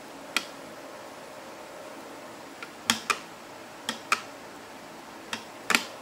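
Plastic LEGO bricks and gears of a puzzle box clicking and knocking as they are handled: about eight sharp clicks, several in quick pairs, over a steady faint hiss.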